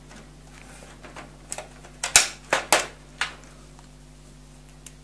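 Electrician's scissors cutting and snapping at the thin perforated sheet steel of a PC power-supply case: a quick cluster of about six sharp metallic clicks in the middle, the loudest about two seconds in.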